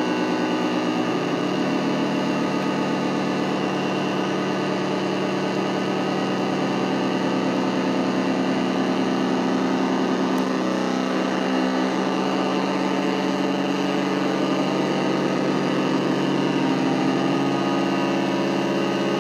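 Nova Drone analog drone synthesizer playing a continuous buzzing drone of many stacked tones. Its pitches shift about a second in, again midway, and once more near the end.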